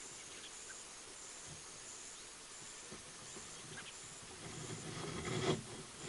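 Crickets chirping in a steady high pulse, about three chirps every two seconds, with a few faint bird chirps. A louder rustling builds near the end and peaks sharply just before it stops.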